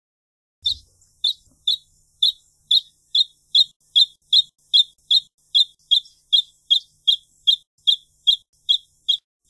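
Wrentit singing: a long series of about twenty short, sharp, high notes that starts just under a second in, spaced about half a second apart at first and then quickening to a steady two to three notes a second.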